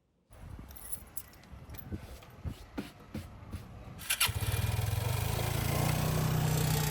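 A few clicks and knocks, then about four seconds in an engine starts and settles into a steady low running hum.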